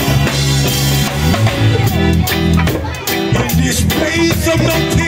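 Live band playing through a PA: drum kit, bass and electric guitars, and keyboard in a steady groove, with regular drum and cymbal hits.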